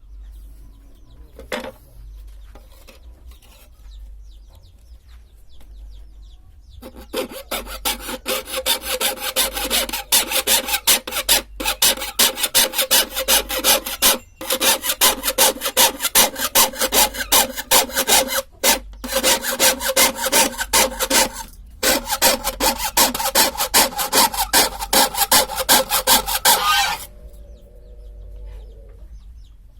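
Hand saw cutting through wood in quick, steady back-and-forth strokes, starting about seven seconds in. It pauses briefly a few times and stops a few seconds before the end.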